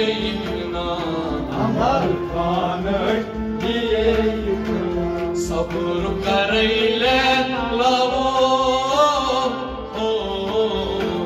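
Singing over instrumental accompaniment, with a steady held note sounding beneath the voice.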